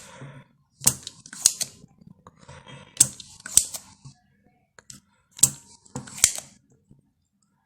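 Sharp clicks and taps of small tools being handled on a workbench, in pairs about half a second apart, over a faint low hum.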